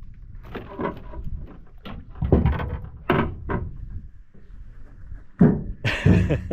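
A few separate knocks and thumps on a fishing boat over a low steady rumble, the loudest about five and a half seconds in.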